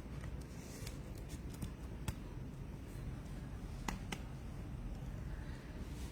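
Trading cards being handled: a few light, sharp clicks and soft rustles, the clearest about two and four seconds in, over a steady low hum.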